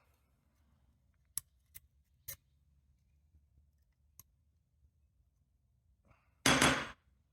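A few light metal clicks from padlock parts and small tools being handled, then a louder clatter lasting about half a second near the end.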